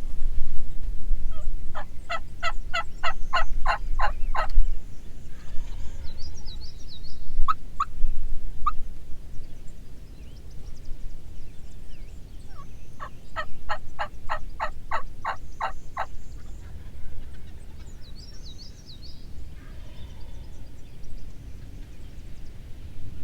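Wild turkey gobbling twice, each gobble a rapid rattling run of notes lasting about three seconds, about ten seconds apart. Wind rumbles on the microphone throughout, and small birds chirp briefly between the gobbles.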